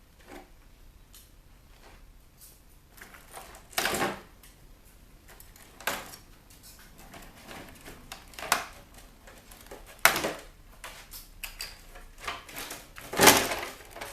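Wire connectors being pulled off inside a dismantled CD changer: about five separate short clicks and knocks a couple of seconds apart, the loudest near the end.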